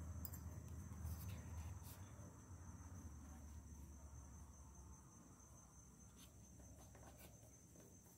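Near silence, with a faint steady high-pitched trill of crickets throughout. A low hum fades out about five seconds in, and there are a few faint clicks.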